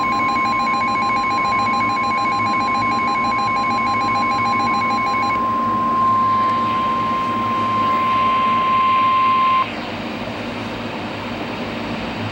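NOAA Weather Radio warning alarm tone: one steady high tone of about 1050 Hz that cuts off suddenly about nine and a half seconds in, signalling the broadcast of a severe weather warning. For the first five seconds a rapid pulsing beep pattern sounds over it, and a low hum and hiss of the radio continue underneath.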